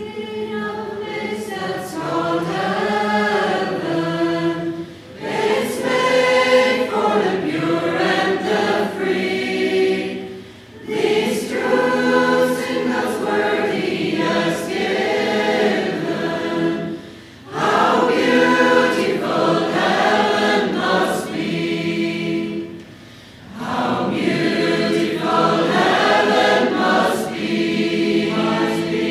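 A choir singing a slow song in long phrases, with a short breath-like break every five or six seconds.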